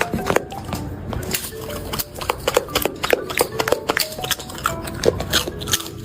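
Background music with a stepping melody, dotted with many short sharp clicks.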